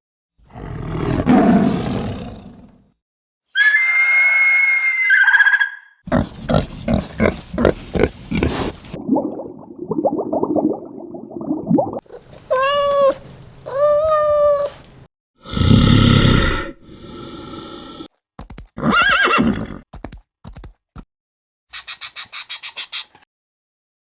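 A run of different animal calls, one after another, each a second or two long with short silences between them: some pitched calls, some rough or rapidly pulsing sounds.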